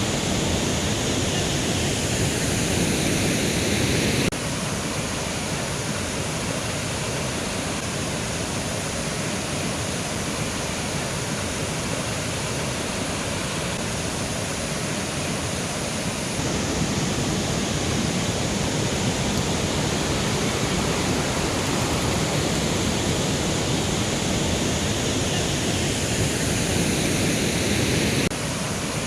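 Mountain river rushing over rocks, a steady full rush of water. Its loudness steps abruptly down and up a few times.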